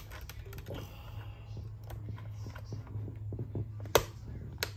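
Small clicks and taps of hard plastic as the cassette door is worked onto the back of a Cricket talking doll, its prongs being pushed toward their slots, with two sharp, loud clicks near the end.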